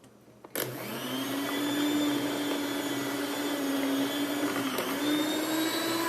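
Electric stand mixer switched on about half a second in, its motor spinning up within a moment and then running steadily while it beats cake batter, the bowl turning on its own.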